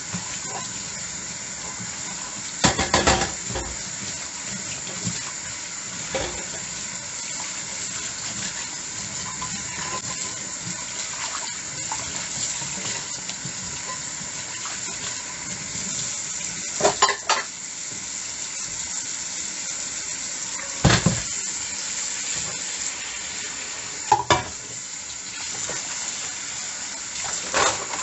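Dishes being washed under running tap water: a steady rush of water into the sink, with a handful of short clinks and clatters of dishes knocking together, the loudest a few seconds in and in the second half.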